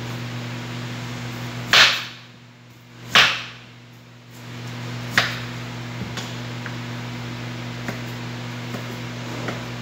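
Two sharp, loud knocks about a second and a half apart, then a few light, irregular knife taps on the counter as ginger root is cut, over a steady low hum.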